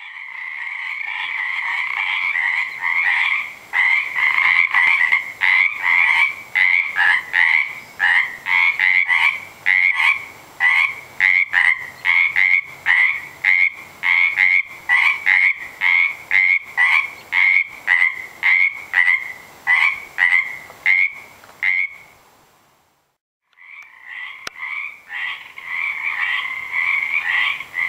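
Loud chorus of many frogs calling from a small pond, overlapping croaks pulsing about twice a second. It breaks off for about a second some 22 seconds in, then starts again.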